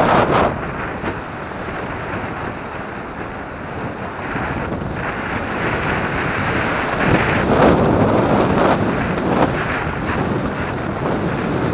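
Wind from the ride buffeting the microphone of a camera on an electric mountain bike moving along a sandy dirt road, rising and falling in gusts, with a few brief knocks as the bike rolls over the rough ground.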